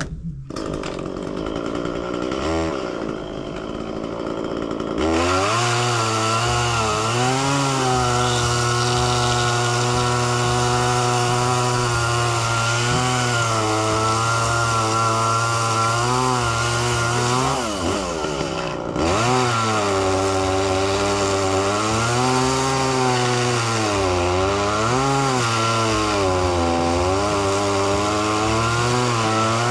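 Chainsaw engine cutting wood, its pitch wavering up and down under load. It comes in loud about five seconds in, drops briefly at about eighteen seconds, then picks up again.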